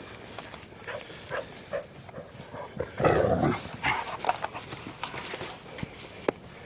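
A dog vocalizing in a series of short sounds, the loudest about three seconds in.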